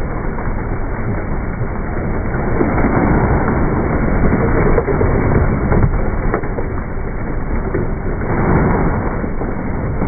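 Live crawfish pouring out of a mesh sack into a plastic cooler, a dense crackling clatter of shells against each other and the cooler walls, swelling in surges.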